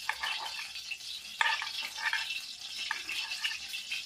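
Kitchen knife cutting through a soft steamed taro-leaf roll on a steel plate, the blade clicking against the metal plate a few times, loudest about a third of the way in, over a steady background hiss.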